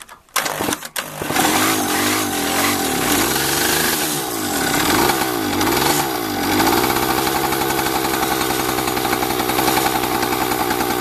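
Freshly rebuilt D8 50 cc two-stroke moped engine being started on a test stand for its first run: a few sharp pops, then it catches about a second in. Its revs rise and fall several times, then it settles into a steady fast buzz.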